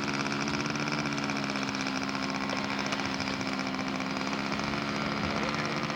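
Model airplane engine running steadily at low throttle with a buzzing note while the model taxis out for takeoff.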